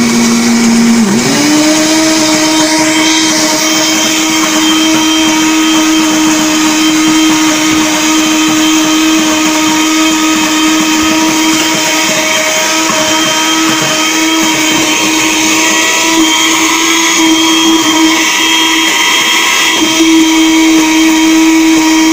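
Arno electric blender running steadily, blending a thick homemade requeijão mixture of cheese curds, milk and margarine. About a second in its motor pitch dips briefly, then rises and holds at a higher pitch; the motor cuts off suddenly at the end.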